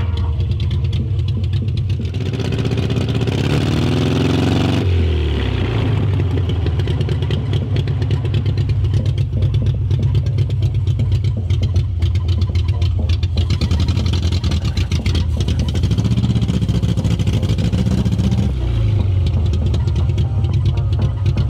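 1970 MGB's 1.8-litre four-cylinder engine running as the car is driven, heard from inside the cabin. It revs up between about three and five seconds in, drops off suddenly, and rises again near the end.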